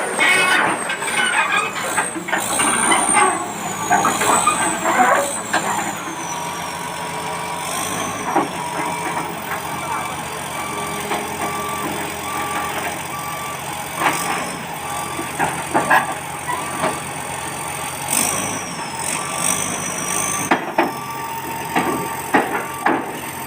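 A bulldozer reversing up to load, with its diesel engine running under a high, wavering squeal and scattered clanks of the steel tracks. A reversing alarm beeps regularly for a few seconds around the middle and again near the end.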